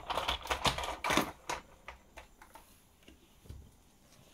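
Hard plastic Playmobil toy pieces clicking and clattering as they are handled, a quick run of clicks in the first second and a half, then a few scattered ticks and a soft knock.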